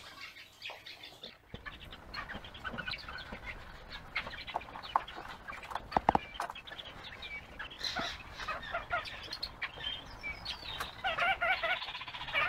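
Crested wood partridges (roulrouls) and their chicks calling: many short high peeps, with a run of quick repeated clucking calls near the end. A couple of sharp taps sound about halfway.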